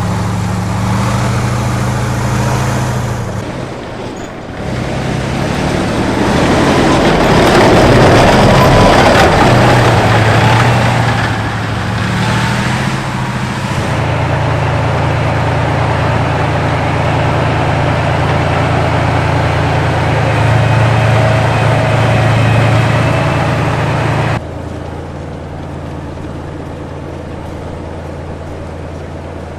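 T-72 tank's V12 diesel engine running, getting louder with a broad rush of noise from about six to thirteen seconds in, then settling to a steady engine note. The sound changes abruptly twice, about four seconds in and near the end, where it drops to a quieter engine tone.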